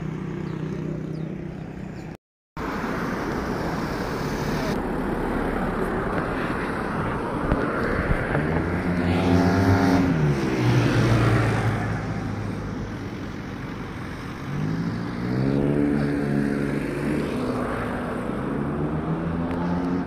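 Road traffic: motor vehicles passing on a street, with engines rising in pitch and then easing off twice, about eight and fifteen seconds in, over a steady background rush. The sound drops out briefly just after two seconds.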